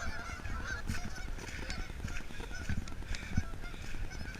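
A flock of Canada geese honking, many short calls overlapping in a steady chatter.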